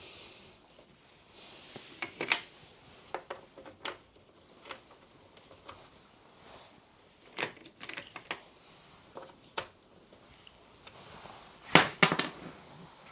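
Metal hand tools, sockets from a socket set, clinking and clicking as they are handled, in irregular knocks with a louder cluster of clatter near the end.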